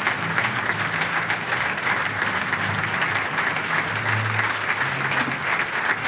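Audience applauding: a dense, steady run of many hands clapping.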